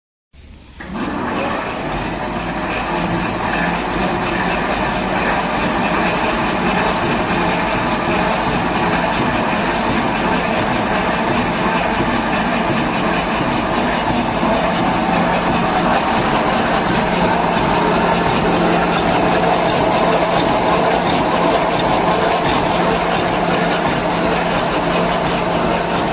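Full-automatic wire mesh welding machine for fine 0.4–0.7 mm wire, running steadily as it welds mesh: a dense, even mechanical noise that starts abruptly right at the beginning.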